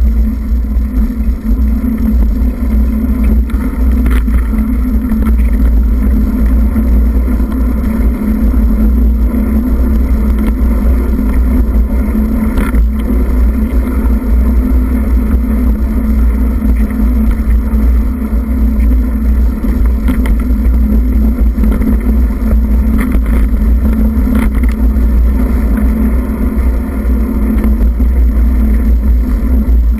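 Continuous riding noise from a camera moving along a dirt forest trail: heavy wind buffeting on the microphone over a steady low hum, with an occasional faint knock from the rough ground.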